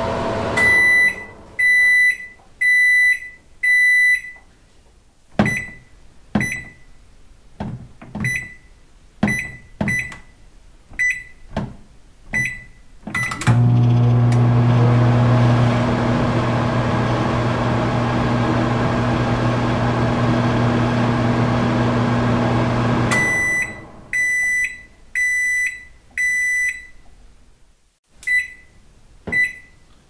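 Microwave oven: four long high beeps, then a string of keypad presses, each a click with a short beep. About halfway through it starts running with a steady low hum for about ten seconds. It then stops with four long beeps, and a few more key presses follow near the end.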